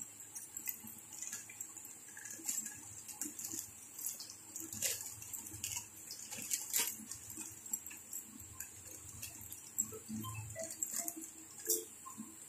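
Clear plastic bag crinkling and rustling as it is handled, with scattered small clicks and taps of plastic parts and cables.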